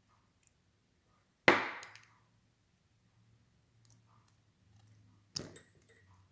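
Two sharp metallic snaps, the first and louder about one and a half seconds in with a brief ring, the second near the end, as a C-clip is pried off the brass padlock's plug.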